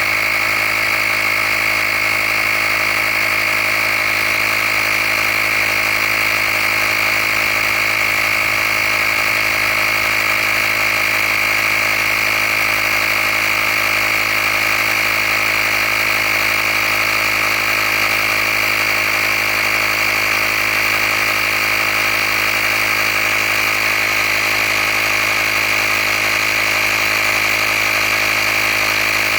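Handheld tire air compressor running steadily while pumping up a tire toward its preset pressure: a constant mechanical drone with a strong high whine, unchanging in pitch.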